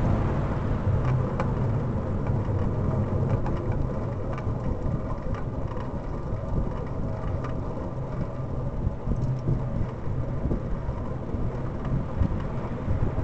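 Wind rumbling on the microphone of a camera on a moving bicycle, with tyre noise on the road and a few faint clicks and rattles.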